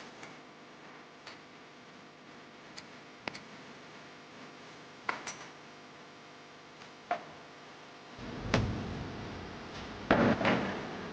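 Sparse light clicks and taps, a few seconds apart, like hand work on small metal parts. From about eight seconds in, a louder low rumble with several heavy thuds takes over.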